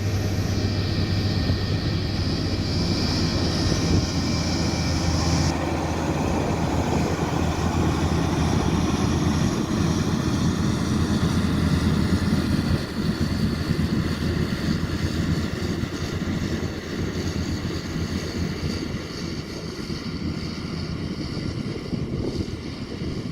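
Komatsu D41P bulldozer's diesel engine running steadily as the machine works. A high whine over the engine stops abruptly about five seconds in, and the sound eases slightly in the second half.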